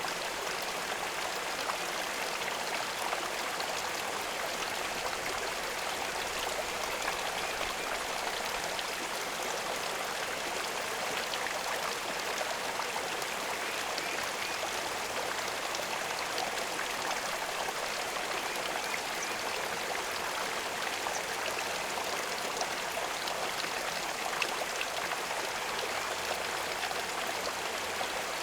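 Steady trickling and splashing of running water, an even rush with many small drips and splashes in it.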